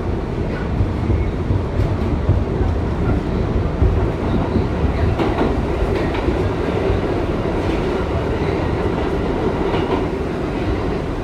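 Inside a Bombardier-built R62A subway car running through the tunnel: a steady loud rumble of steel wheels on the rails, with scattered clicks. A steady drone joins about halfway through.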